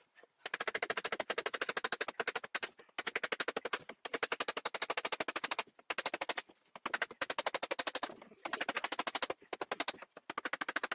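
Ratcheting screwdriver clicking rapidly as screws are driven into a particleboard bookcase panel, in runs of about one to two seconds with brief pauses between strokes.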